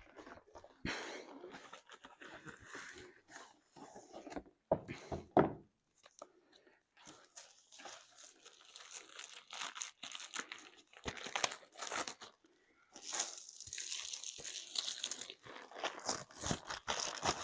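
Crinkling and rustling of plastic and paper packaging handled by hand while unpacking a diamond painting kit, with scattered taps and clicks; the rustling is busiest a little after the middle.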